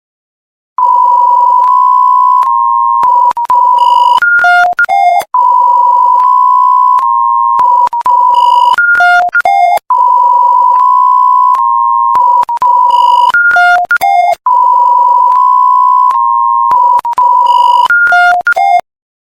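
Electronic emergency alert tone. A loud steady beep holds for about two seconds, then breaks into a quick run of short beeps jumping higher and lower in pitch. The whole pattern repeats four times, about every four and a half seconds.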